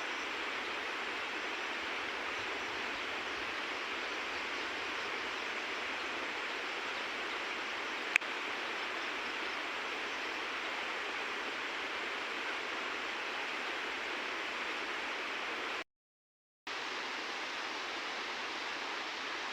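Steady rush of flowing river water, with one sharp click about eight seconds in. The sound cuts out completely for under a second near the end.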